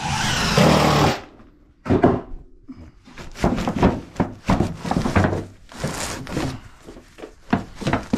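Handling sounds of fiberglass batt insulation being pressed between wooden floor joists by hand: a loud rustle in the first second, a knock about two seconds in, then irregular rustling, taps and wooden knocks as a thin wood strip is set against the batts.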